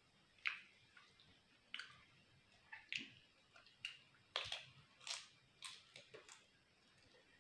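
Crisp fried papad bitten and chewed close to the microphone: about a dozen sharp, crackling crunches that stop a little before the end.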